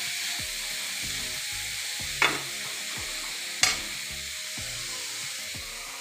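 Grated carrots sizzling in hot ghee in a kadai while a metal spatula stirs them, with a steady frying hiss. Two sharp clicks of the spatula against the pan come about two and three and a half seconds in.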